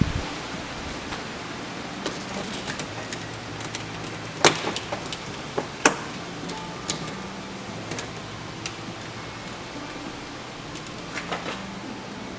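Scattered clicks and knocks of hand tools and plastic trim parts being handled while working on a truck's interior door handle. Two sharp, louder knocks come about four and a half and six seconds in, over a steady low hum.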